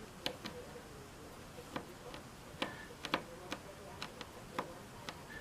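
Small, sharp clicks and ticks at an irregular pace, about ten in all, from a small screwdriver driving a tiny screw into a laptop display panel's mounting hole.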